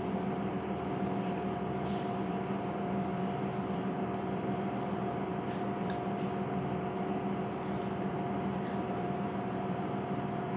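A steady machine hum with a few constant tones over a hiss, with a few faint light clicks.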